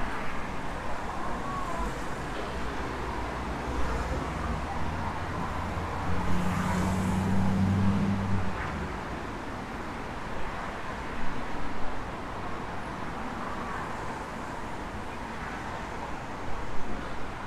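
Outdoor city ambience of steady road traffic, with a low engine hum from a passing vehicle swelling near the middle and fading a couple of seconds later.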